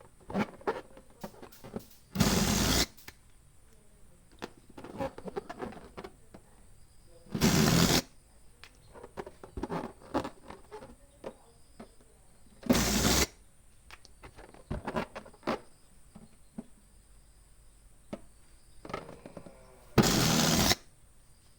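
Balloon pump blowing air in four loud bursts of rushing air, each about half a second long and several seconds apart, with small clicks and rubbery handling noises between them.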